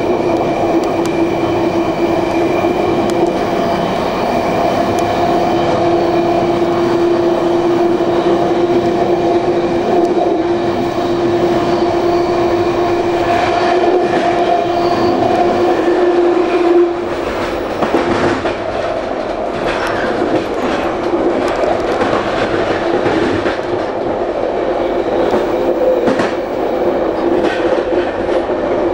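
Electric train running along the line, heard from inside its rear cab: a steady rumble of wheels on rail under a humming tone. The hum cuts off about seventeen seconds in, and after that the wheels click repeatedly over rail joints and switches.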